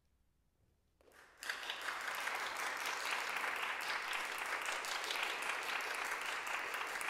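Audience applause: near silence at first, then clapping starts faintly about a second in and quickly swells into steady, dense applause.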